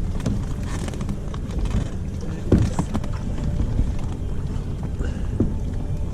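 Wind buffeting the microphone, a steady low rumble, with two short falling squeaks about two and a half and five and a half seconds in.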